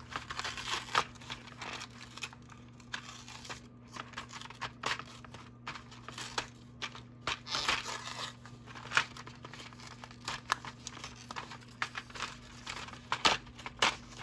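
Cardboard and plastic packaging of a toy building set being pried and torn open by hand: irregular crinkling, tearing and small clicks. The box's glued flaps are resisting.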